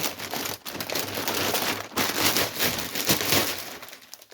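Crinkly packaging rustling and crackling as it is handled, a dense run of small crackles that fades away near the end.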